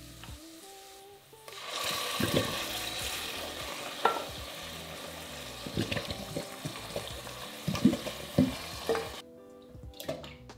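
Canned whole San Marzano tomatoes tipped into a saucepan of hot olive oil and softened onions, sizzling loudly as they hit the pan, with a series of soft thumps and splats as the tomatoes and juice land. The sizzle starts about a second and a half in and cuts off suddenly near the end.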